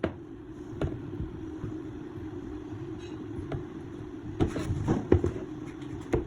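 A motor running with a steady low hum, with scattered sharp knocks and taps over it, several of them close together near the end.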